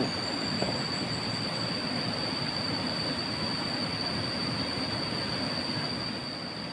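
Cicadas droning steadily at one high pitch over a constant rushing background noise, with a soft knock right at the start.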